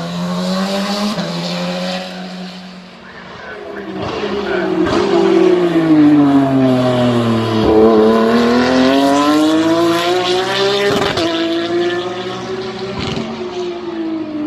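Porsche race car engines on a circuit. One car's engine note grows louder as its revs fall steadily while it slows, then climbs again as it accelerates away, with short breaks in the note like gear changes.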